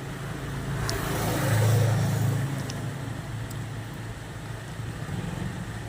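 A motor vehicle passes by: its low engine hum and road noise build up to a peak about two seconds in and then fade away, with a couple of faint clicks.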